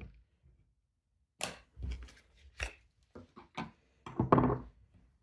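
Sharp clicks and knocks of a fixed-blade knife being pulled from its Kydex sheath against the sheath's retention point, then the sheath and knife knocking on a wooden tabletop, with a louder clatter near the end.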